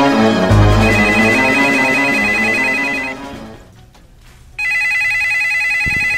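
Telephone ringing twice, each ring a rapid two-tone trill about two seconds long. Background music plays under the first ring and fades out about three and a half seconds in.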